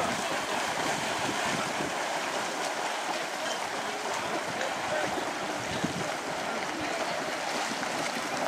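Steady splashing of many swimmers doing front crawl in open water, an even wash of churning water with no single strokes standing out.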